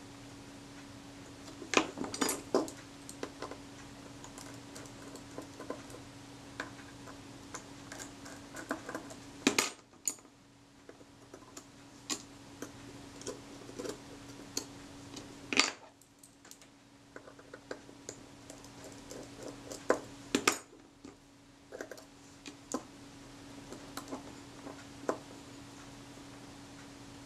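Small metal clicks and taps as a jeweller's screwdriver and tweezers work the screws and outer case of a Kodak Retina IIIc leaf shutter. The clicks are scattered, with louder ones about two seconds in, near ten seconds, near sixteen seconds and near twenty seconds, over a steady low hum.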